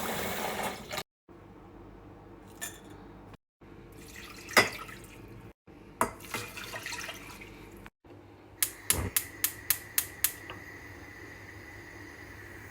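Water running briefly while fresh rosemary is rinsed, then scattered clinks and knocks of dishes and kitchen things being handled. Later comes a quick even run of about seven sharp clicks, followed by a faint steady hum.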